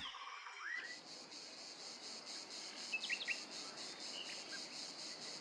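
Faint outdoor ambience of insects chirring steadily in a high, finely pulsing buzz, with a few short bird chirps, one about a second in and a couple around the three-second mark.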